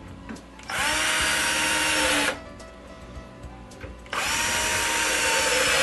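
Handheld power drill driving screws to fasten plastic corner brackets into a cabinet base, running twice for about a second and a half each time, the second run starting about four seconds in.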